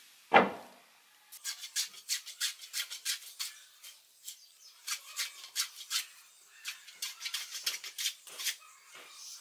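A single wooden thud about half a second in as a board is set down. Then a metal hand plane shaving a wooden plank in quick, rasping strokes, several a second, in two runs with a short pause between them.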